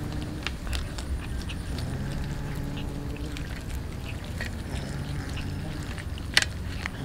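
Cats chewing raw fish, with many small crisp crunches and one louder crack near the end. A low, steady growl from a cat guarding its food comes and goes in stretches about a second long.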